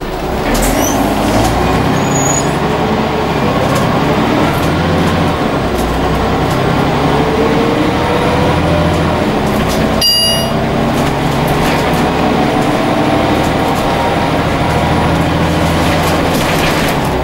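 Scania N94UA OmniCity bus's five-cylinder diesel engine and drivetrain, heard from inside the saloon as the bus drives, its pitch rising as it pulls away and accelerates. A brief high chime sounds about ten seconds in.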